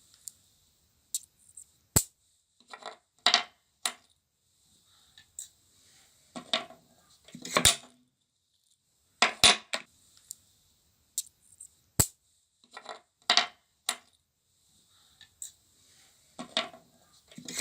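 Small hard metal pieces clicking and clinking together: about a dozen sharp strikes at irregular intervals, some with a short ringing.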